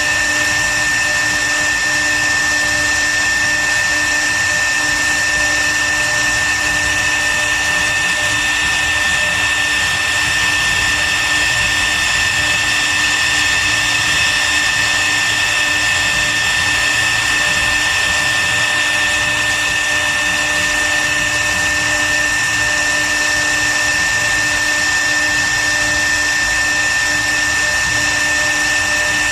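CNC router spindle running steadily with a constant high-pitched whine over a rushing noise.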